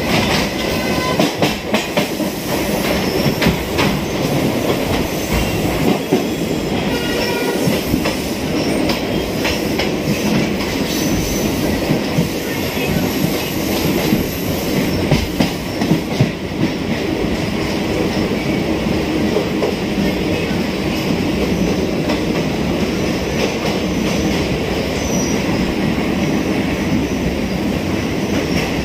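Suburban electric multiple-unit train running along the line, with wheels clattering over rail joints and some squeal, as a steady rumble. The clatter is busiest in the first half and settles into a steadier run later.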